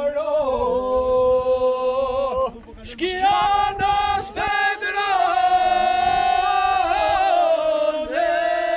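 A small group of men singing unaccompanied in several parts, in the Albanian polyphonic style: long held notes over a steady drone. The first phrase breaks off about two and a half seconds in, and a new one starts a moment later.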